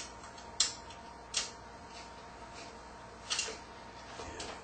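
About four sharp metal clicks and ticks, spread out, as a graphics card's metal bracket and its screws are handled and set against the PC case's expansion-slot opening.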